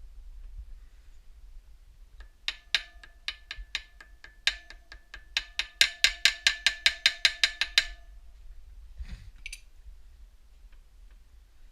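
Hammer striking a metal driver to move a wheel bearing in a KTM EXC wheel hub: a run of sharp, ringing metallic blows that speed up to about four a second, then stop. A single duller knock follows a second later.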